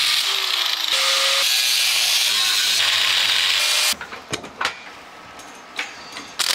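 Angle grinder with a cut-off wheel slicing through sheet steel, its whine dipping and recovering in pitch as the wheel bites. It cuts off suddenly about four seconds in and gives way to a few quieter clicks and knocks as a floor jack is worked.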